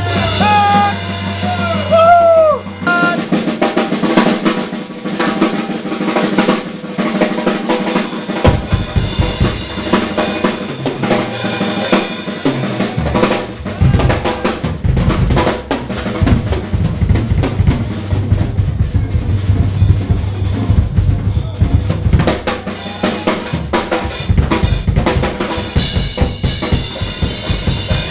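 A band playing live, with a drum kit and electric guitars. About three seconds in the full band comes in hard, and heavy low bass joins about eight seconds in.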